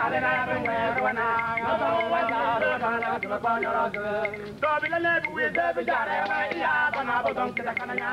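Voices singing a chant, with sharp percussive taps scattered through it.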